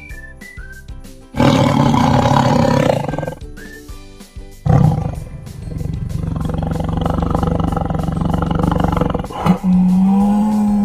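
Tiger roaring twice over light background music: a short roar about a second and a half in, then a longer, rumbling roar from about five to nine seconds. A steady low tone comes in near the end.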